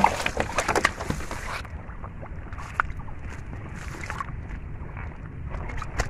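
Muddy water splashing and sloshing as hands grapple with a large fish in a shallow water hole. The sharp splashes are dense for the first second and a half, then give way to quieter sloshing with a few scattered splashes.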